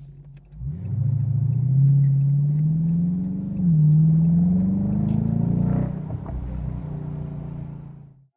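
Car engine accelerating, its note climbing, dropping suddenly at an upshift about three and a half seconds in, then climbing again before easing off about six seconds in. Heard from inside the cabin with the sunroof open and the front windows cracked; the sound cuts off abruptly just before the end.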